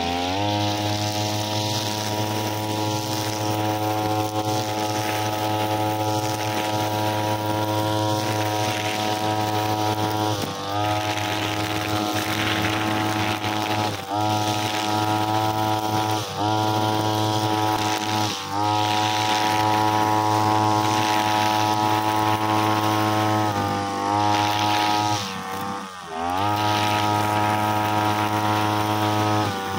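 Backpack brushcutter engine running at high revs while cutting long grass, a steady buzzing drone with the hiss of the cutter in the grass. Its pitch sags briefly and picks back up about six times, the deepest dip coming near the end.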